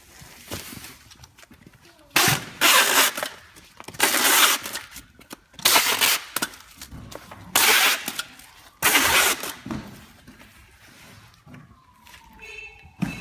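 Plastic stretch film being pulled off a hand-held roll while wrapping a packed awning: five loud crackling pulls, each about half a second to a second long, with quieter rustling of the plastic between them.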